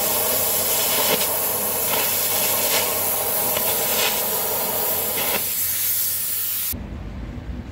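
Carbon air arc gouging on the steel skin of an excavator bucket: a steady hiss of the compressed-air jet and arc with a few sharp pops, cutting off suddenly near the end.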